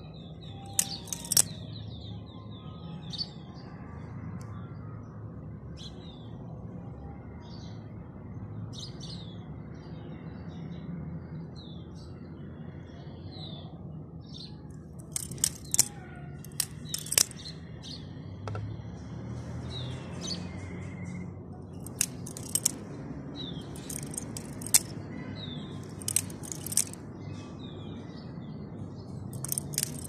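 Sharp metallic clicks and clacks of a rainbow-finish steel balisong's handles and latch being handled and swung open and shut, coming in small clusters, most about halfway through and in the last third. Birds chirp in the background.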